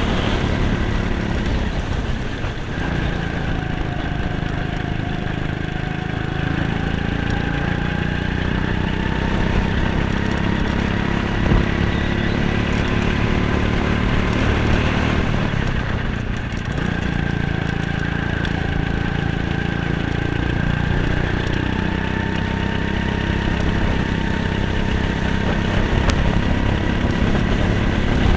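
Go-kart engine running hard from on board the kart. Its pitch climbs slowly as the kart gathers speed, drops briefly about halfway through as it eases off, then climbs again.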